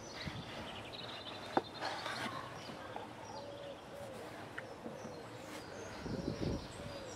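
A kitchen knife slicing through soft burger buns and tapping on a wooden cutting board, quiet, with one sharp tap about one and a half seconds in. Faint repeated animal calls in the background, loudest near the end.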